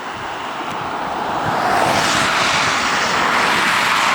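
Traffic on a wet highway: a vehicle approaching with tyres hissing on the soaked road, growing louder over the first two seconds and then holding, over the steady rush of floodwater running off into the ditch.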